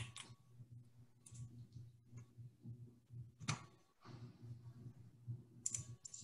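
Quiet low hum with a few faint, irregular clicks spread through it.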